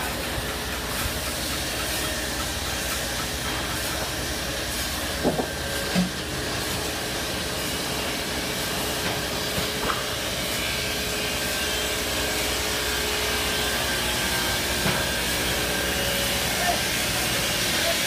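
Shengong MJY142U-35 multi rip saw running and ripping squared logs: a steady whirring hiss with an even motor hum. Two short knocks come about five and six seconds in, and the sound grows slightly louder in the second half.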